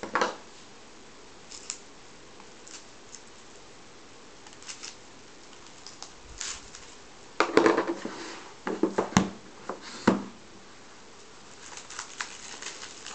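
Trading card box packaging being opened and handled: scattered short clicks and rustles, with a busier spell of handling noise a little past halfway.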